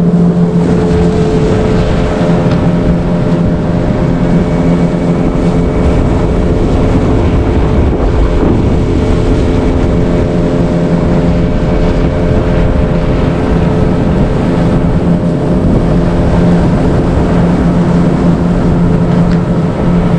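Outboard motor of a small fishing boat running at a steady speed with an even hum, with wind noise on the microphone.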